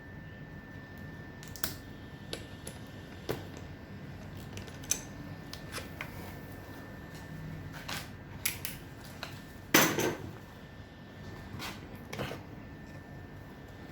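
Irregular light clicks and knocks of small hard objects being handled, the loudest a brief clatter about ten seconds in, over a faint steady high-pitched tone.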